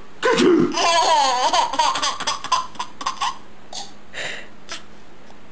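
A man's playful fake sneeze right at the start, then a baby laughing hard for about three seconds in high, pulsing peals. The laughter trails off into a few short breathy laughs.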